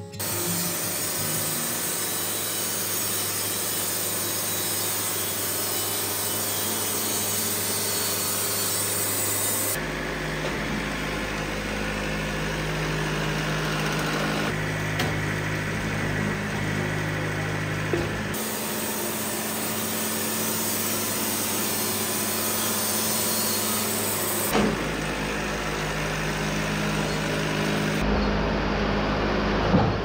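Wood-Mizer LT70 hydraulic bandsaw mill sawing a cherry log into boards: the band blade cuts through the wood over the steady running of the mill's motor. The sound changes abruptly in tone several times.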